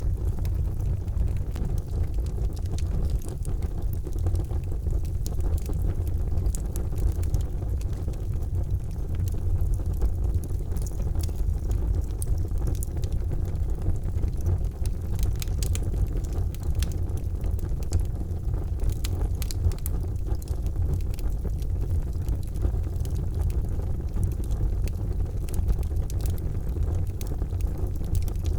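Charcoal fire burning: a steady, low-pitched rushing noise with frequent small, sharp crackles and pops scattered irregularly throughout.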